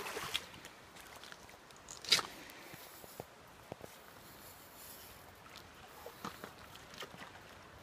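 Faint, steady river ambience, with one short, louder noisy burst about two seconds in and a few soft clicks later on.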